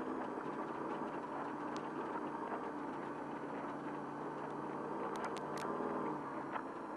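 Off-road race truck's engine heard from inside the cab, running steadily at low revs of about 2,000 rpm, with a few short high clicks about five seconds in.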